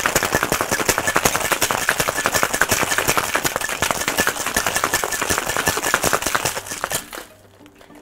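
Ice rattling hard in a cocktail shaker as the drink is shaken, a rapid continuous clatter that stops about seven seconds in.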